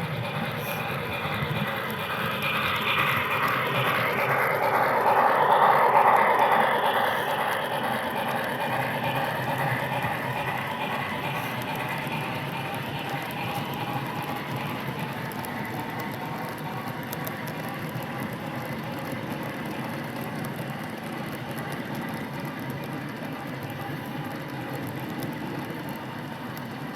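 HO scale model train led by a C&O T-1 2-10-4 steam locomotive model running along the track: a steady whir and rattle of motor and wheels. It grows louder and peaks about six seconds in as it passes close, then slowly fades.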